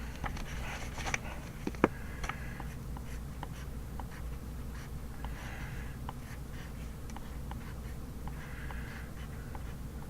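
Handwriting on paper: short runs of scratchy strokes with small taps in between, and a sharper click about two seconds in.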